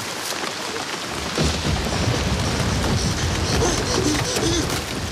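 Heavy rain pouring down, with a low rumble of thunder that comes in about a second and a half in and lasts a few seconds.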